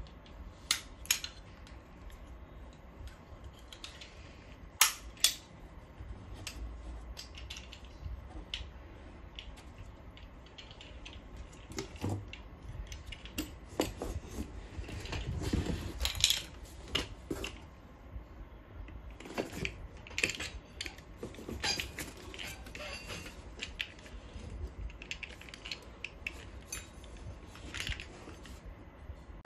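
Steel monitor-stand arm being handled and lifted out of its moulded pulp packaging: scattered metallic clinks, knocks and scrapes, with the sharpest knocks about a second and five seconds in.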